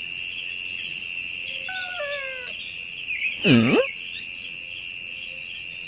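Edited-in ambience: a steady high-pitched drone with faint bird chirps. About two seconds in comes a short falling tone, and about three and a half seconds in a loud cartoon-style swoop that dips down in pitch and comes back up.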